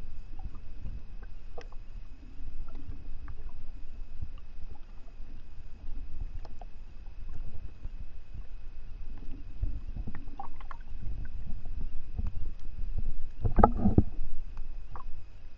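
Muffled underwater sound picked up by a submerged camera: low water rumble and sloshing with scattered faint clicks and a faint steady high whine. A louder burst of sound comes a little before the end.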